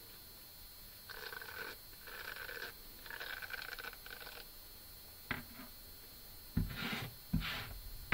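Handling of a wire-pin pet slicker brush: three short scratchy rasps with a ringing edge, then a light click and two knocks as the brush is set down on a wooden table.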